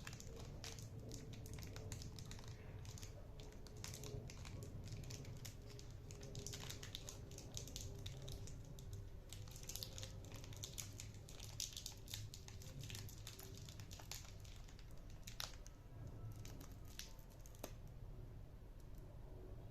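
Plastic wrapper of a pistachio brittle snack crinkling and crackling in irregular bursts as it is handled and worked open.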